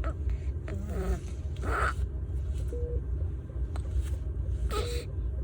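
Steady low hum of a baby incubator, with a newborn's short whimper about a second in and two brief bursts that fit small baby sneezes, near two seconds and again near five. Faint short beeps sound about every two seconds.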